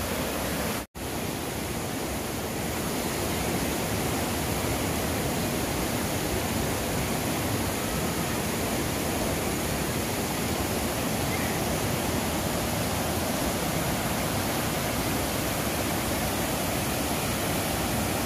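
River rapids rushing over large boulders: a steady rush of whitewater, broken by a brief moment of silence about a second in.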